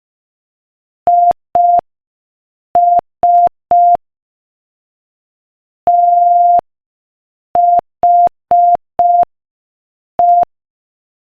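Morse code sent as a steady, single-pitch beep at 5 words per minute, in short dits and one long dah. The beeps spell "I S", then after a longer pause "T H E": dit-dit, dit-dit-dit, dah, dit-dit-dit-dit, dit.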